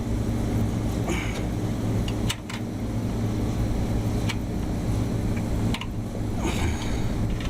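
Steady low hum of running rooftop machinery, with a few sharp metallic clicks and taps as a drive belt is worked onto a motor pulley by hand.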